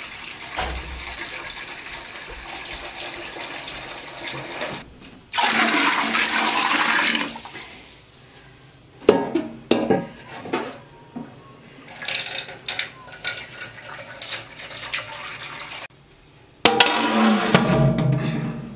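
A big aluminium pot of herb soup bubbling as it simmers, with two loud bursts of rushing, churning liquid and a few sharp knocks about halfway through. Near the end the pot's metal lid is set on.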